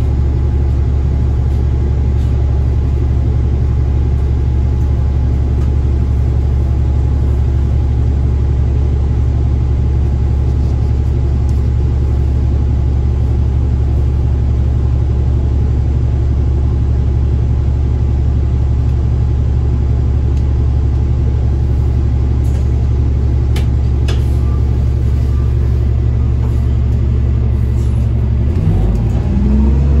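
Orion city bus engine idling, heard from inside the cabin: a loud steady low hum with a steady whine above it, and a few light clicks about two-thirds in. Near the end the engine revs up with rising pitch as the bus pulls away.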